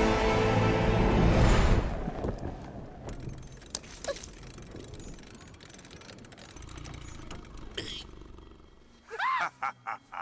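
Cartoon soundtrack: a loud rushing, crashing noise under music fades out in the first two seconds, followed by a few faint clicks. Short high squeaks from the cartoon squirrel come about nine seconds in, gliding up and down in pitch.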